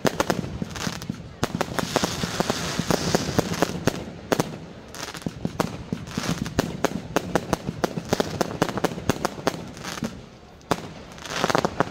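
Fireworks going off: a dense run of sharp cracks and pops, quieter briefly near the end before a fresh cluster of cracks.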